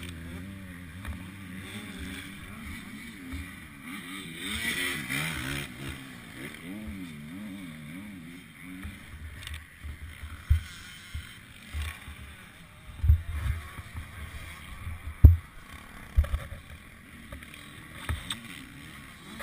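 Distant motocross bike engines revving and easing off out on the track, their pitch rising and falling, through the first half. Later come a few dull low thumps.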